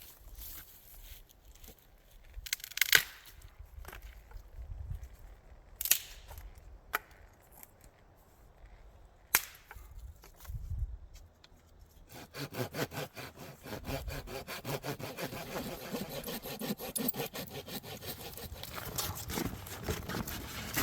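Hand saw cutting through firewood in steady back-and-forth strokes, starting about halfway through. Before that, a few sharp knocks and cracks of wood being handled.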